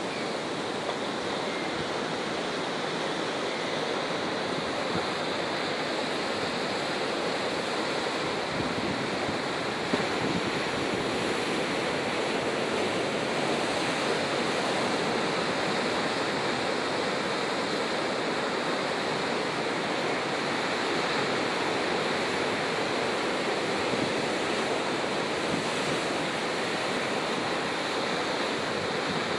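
Ocean surf breaking over shoreline rocks, a steady continuous wash of waves.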